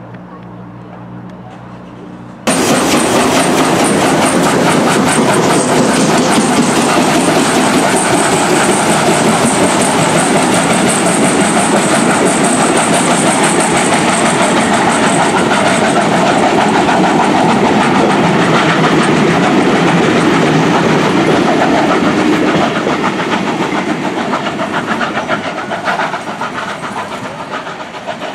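Steam-hauled train with FS GR 740 locomotives passing close by: a loud, dense rush of wheels and running gear on the rails. It starts abruptly about two and a half seconds in and fades away over the last several seconds as the train moves off.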